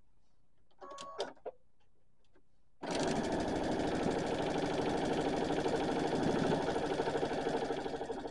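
Sewing machine stitching a seam, starting abruptly about three seconds in and running steadily, after a few short clicks as the fabric is positioned under the presser foot.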